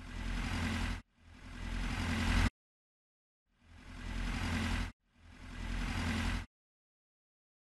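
Engine sound effect for a loader: a machine engine running in four short bursts of about a second and a half each. Each burst swells up and then cuts off abruptly.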